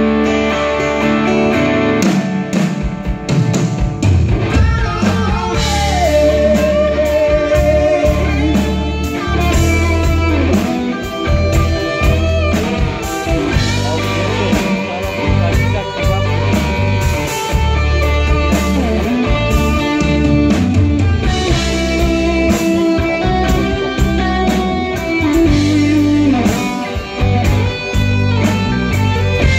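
Rock band playing live, an instrumental passage with guitars, bass, drums and keyboards; the drums and bass come in about two seconds in, under a lead melody that slides in pitch.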